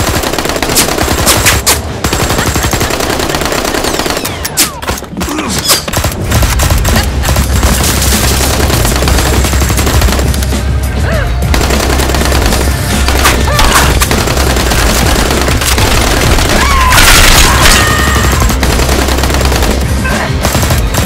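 Rapid, dense gunfire-like shots over backing music, loud all the way, with a heavy bass line coming in about six seconds in.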